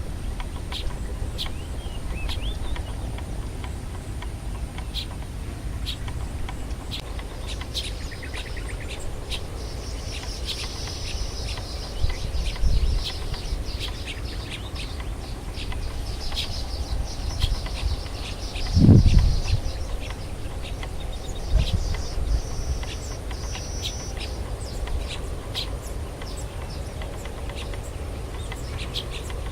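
Birds chirping and calling, with many short high chirps and a few buzzy trills, over a low steady rumble and a faint steady high tone. A brief low thump, the loudest sound, comes about two-thirds of the way through.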